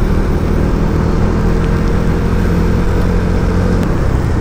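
Motorcycle engine running steadily while being ridden at an even cruising speed.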